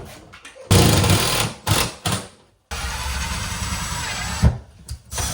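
Power drill driving a screw into a cabinet toward a wall stud: two short bursts, then a steady run of about a second and a half, with a sharp knock near the end.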